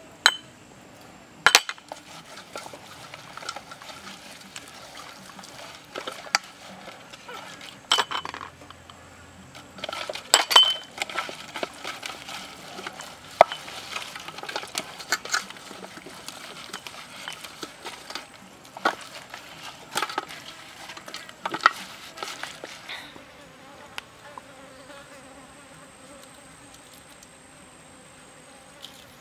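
Hands rubbing seasoning into a raw duck on a metal tray: wet rubbing with scattered sharp clicks and taps against the tray. A fly buzzes, most plainly near the end.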